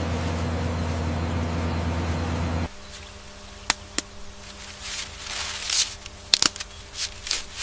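A steady, loud machine hum, like a running engine, cuts off abruptly a little under three seconds in. After it a faint hum remains, broken by scattered sharp cracks and brief rustles.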